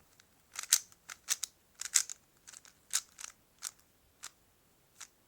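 Plastic 3x3 Rubik's Cube being turned by hand: a quick, irregular run of sharp clicks and clacks as the layers snap round, loudest early on and thinning to a few single clicks near the end.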